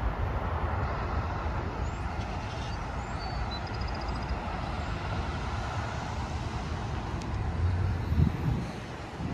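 Steady road traffic noise from a multi-lane highway, a continuous rush of passing cars with a low rumble. The rumble swells louder about eight seconds in.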